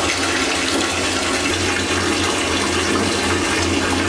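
Bathtub tap running at full flow, a steady stream of water pouring into the tub.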